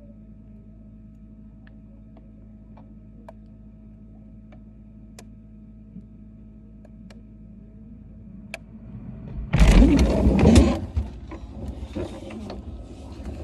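Steady low hum of a freezer heard from inside it, with faint scattered clicks. About nine and a half seconds in, loud rustling and knocking begins as the freezer is opened and the phone is handled.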